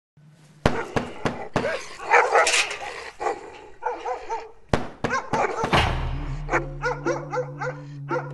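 Dog barking in quick, short, repeated barks. About three-quarters of the way through, a low steady musical drone comes in beneath the barks.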